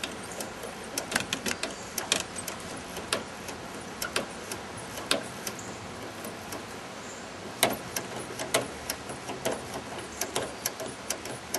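Small hand-operated pump being stroked to pressurize a water-filled one-litre soda bottle, giving a string of irregular sharp clicks and knocks from its handle and valve.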